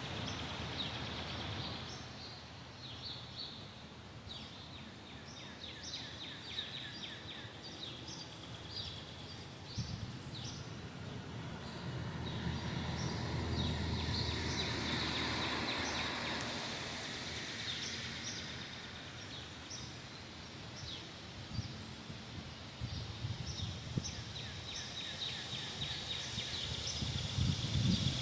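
Birds chirping in short, high, repeated calls over a steady outdoor background rush, which swells for a few seconds about halfway through.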